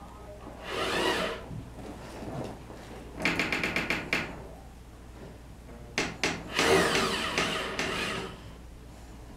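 Hand-tool work on a car's exhaust from underneath, as aluminum flashing is fitted around the exhaust pipe: several bursts of metal scraping and clattering. Around three seconds in there is a quick, even run of clicks lasting about a second, then two sharp clicks near six seconds and a longer scraping burst.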